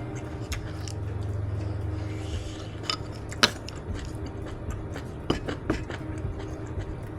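Eating sounds from a mukbang meal of kimchi jjigae: a few sharp clicks and clinks of utensils and dishes, the loudest about three and a half seconds in, with a low rumble for about a second near the start.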